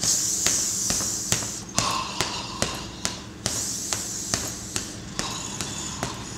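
Boxing gloves punching a leather heavy bag in a steady rhythm, about two to three thuds a second. Between the thuds, breath hisses through the mouth, each breath drawn in or blown out over about four punches.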